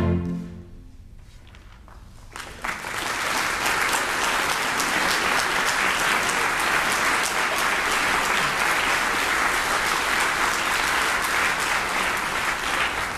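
A string orchestra's last chord dies away. About two seconds later the audience breaks into applause, steady and dense, tapering off near the end.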